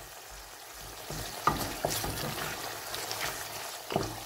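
Wooden spoon stirring and scraping a softened onion-tomato masala around an aluminium karahi, over a faint steady sizzle of the oil. A few sharper scrapes stand out, the strongest about one and a half and four seconds in.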